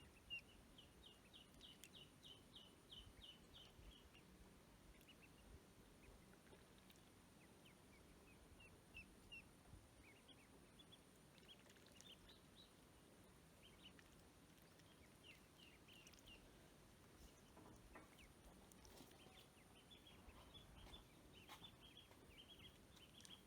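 Ducklings peeping: faint runs of short, high peeps coming in clusters of several quick notes.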